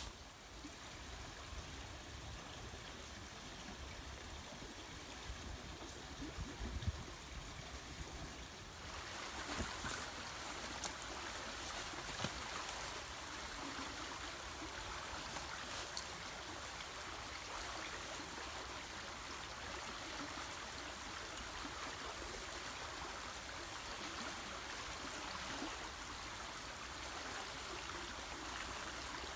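River water rushing steadily, the river running high after heavy rain; the rush grows fuller and louder about nine seconds in. A sharp knock about seven seconds in and a few lighter knocks a few seconds later.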